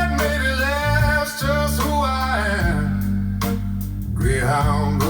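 Blues music played back through Dali Zensor 3 bookshelf speakers driven by a WiiM Amp Ultra: a guitar lead with sliding, bending notes over a steady bass line.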